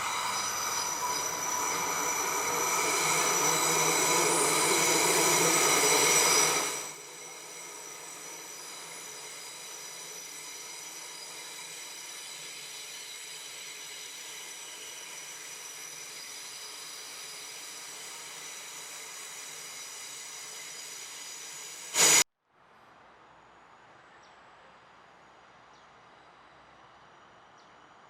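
Train brakes squealing with several high, steady tones, growing louder over the first six seconds and cutting off abruptly about seven seconds in. A quieter steady noise follows, broken by a brief loud burst about 22 seconds in.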